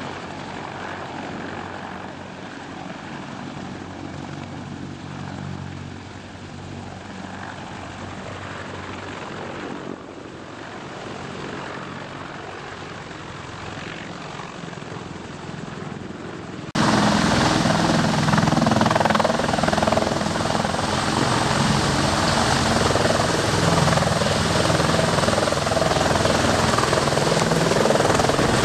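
CH-53E Super Stallion heavy-lift helicopter hovering with an external load, its three-turbine engines and rotors making a steady deep drone. About two thirds of the way through, the sound jumps suddenly much louder and rougher as close rotor wash blasts dust and air across the microphone.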